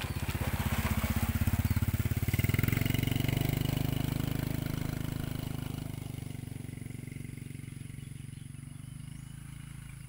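A vehicle engine passing by, running with a fast even pulse. It grows louder over the first two or three seconds, then fades slowly away.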